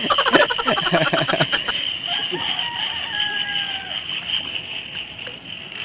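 A man laughing, then a rooster crowing once, its call running about two seconds in and falling off at the end.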